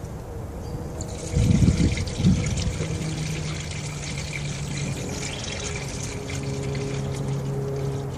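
Antifreeze coolant being poured from a jug into a funnel on the radiator, a steady trickling pour that starts about a second in. A couple of loud low thumps come early in the pour, over a steady low hum.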